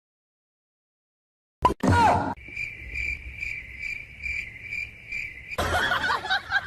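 Insect-like chirping: a steady high chirp pulsing about two and a half times a second for about three seconds, after a silent start and a brief sound about two seconds in. A dense mix of other sound cuts in near the end.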